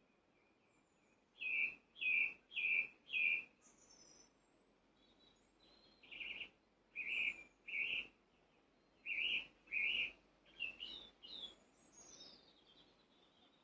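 A bird calling: a run of four loud, evenly spaced notes, then more notes in twos and threes, with fainter high chirps from other birds in between.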